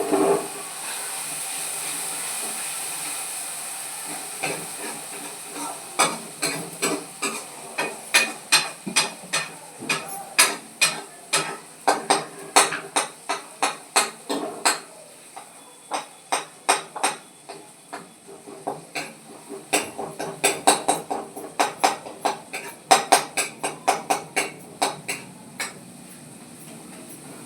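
Food sizzling in a hot pan, then a spatula striking and scraping against the pan in quick, regular strokes of about two a second as the beans and potato sabji is stirred, with a short pause about halfway.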